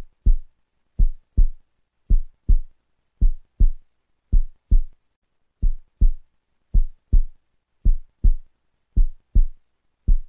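Heartbeat sound effect: pairs of short, low thumps (lub-dub) repeating steadily about once a second.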